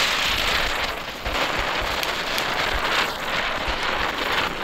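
Small P1 youth-category ground spinner firework burning on the ground, giving a steady fizzing hiss as it sprays sparks, with a brief dip in level about a second in.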